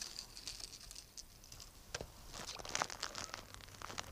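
Faint rustling and a scatter of small clicks from a baitcasting rod, reel and lure being handled, the clicks bunching a couple of seconds in.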